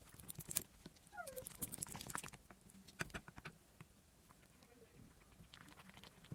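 Faint sticky crackling and clicking of slime being squished and handled, thickest in the first half, with a brief faint squeak just over a second in.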